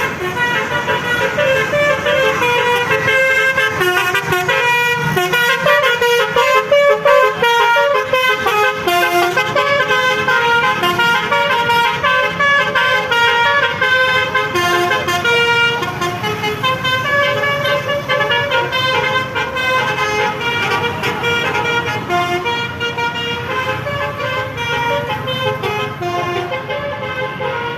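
Basuri telolet bus horn, a set of multi-trumpet air horns, playing a tune in quick stepped notes with several pitches sounding together, over the low rumble of the moving bus.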